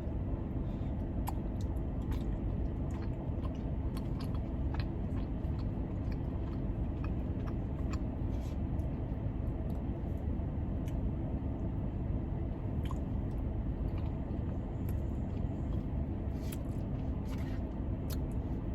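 Close-up chewing and biting, with many small wet clicks and crunches from the mouth, over the steady low hum of a car's air conditioning.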